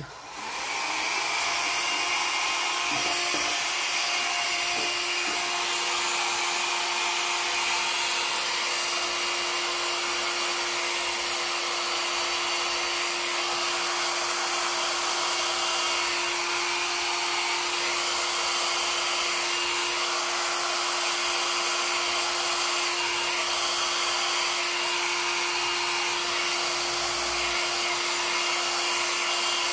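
Handheld hair dryer switched on and running steadily, blowing air over wet acrylic pour paint, with a steady motor hum under the rush of air.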